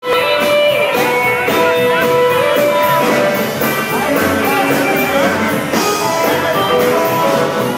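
Live rockabilly band playing: electric guitar lines with bent notes over a steady drum beat with cymbals, backed by bass.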